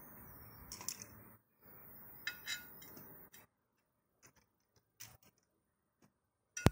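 Scattered light metallic clicks and clinks from a stick-welding electrode holder and rod being handled, with one sharp click near the end, over a faint steady hiss for the first half.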